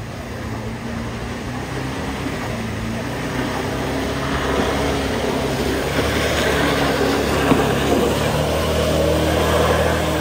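A Volkswagen Beetle's air-cooled flat-four engine working up a steep muddy climb, growing louder as the car approaches. From about four seconds in a hiss of spinning tyres and flung mud joins it.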